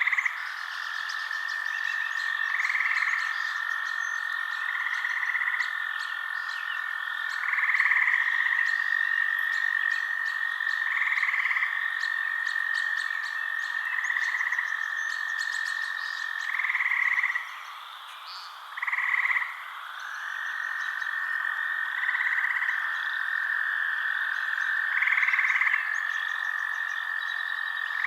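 Frogs calling: a steady high trill with a louder call repeating about every two to three seconds. The trill drops out for about two seconds about two thirds of the way through, while the repeated call goes on.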